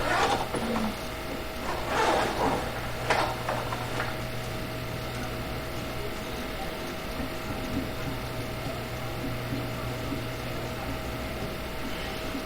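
Steady low background hum with a faint steady tone, no burp. A few brief noises come in the first few seconds, among them a sharp click about three seconds in.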